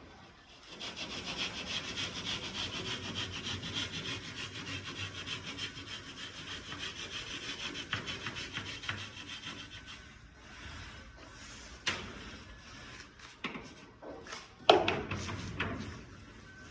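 Hand saw cutting through gypsum board in fast, steady strokes. The sawing stops about ten seconds in and gives way to a few scattered knocks, the loudest near the end.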